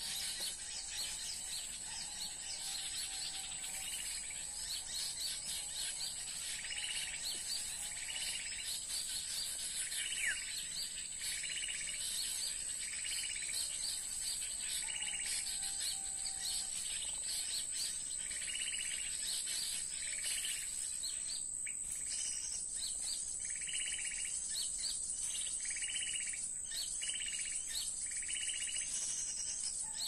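Small-bird chirping calls repeating in short phrases about once a second, played as a bird-trapping lure (suara pikat), over a constant high-pitched tone.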